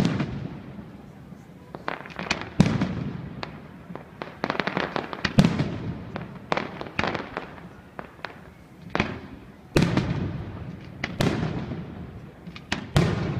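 Aerial fireworks going off: a steady string of sharp bangs and crackles, with heavier booms about two and a half seconds in, near five and a half seconds, near ten seconds and near the end, each fading away in an echo.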